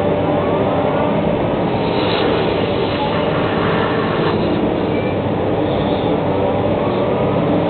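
Excavator working: its diesel engine runs steadily under load, and a whine rises in pitch about a second in and again near the end.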